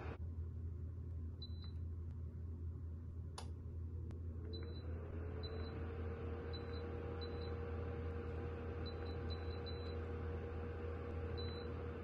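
Dreo DR-HSH001 ceramic tower heater beeping shortly and high-pitched at each remote button press, about nine times, over a steady low hum. A sharp click comes a few seconds in, then its fan starts with a brief rising whine that settles into a steady tone over a rush of air.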